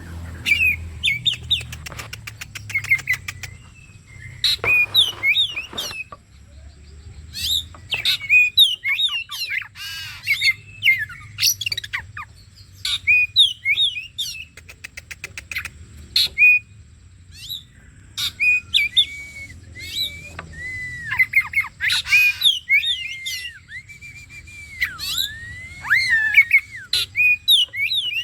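Oriental magpie-robin (kacer) singing a fast, varied song of whistles, chirps, harsh notes and rapid rattling trills, in phrases broken by short pauses.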